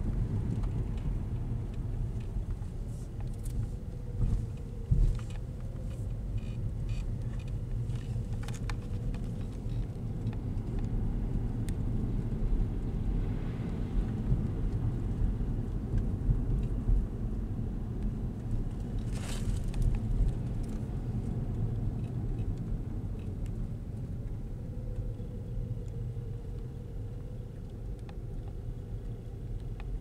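Steady low rumble of a car driving slowly on a wet road, heard from inside the cabin, with a few light clicks.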